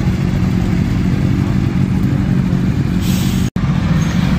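Motorcycle engines running at low revs, a steady low engine note, with a brief dropout about three and a half seconds in.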